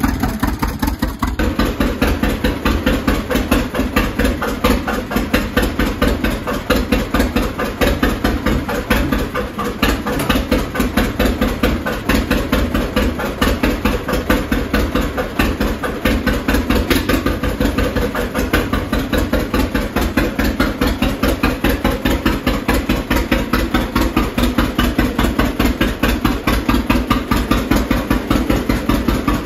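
Two-cylinder John Deere tractor engine idling, its exhaust popping in a steady, even beat.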